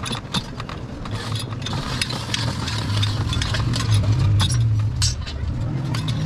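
Thin stainless steel sheet ring clicking and clinking irregularly as it is turned through the rollers of a hand-cranked beading machine. A steady low hum runs underneath, louder in the middle.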